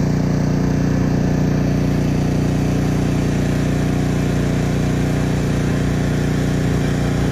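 Engine of a Troy-Bilt Vortex 2890 three-stage snowblower running steadily at an even speed.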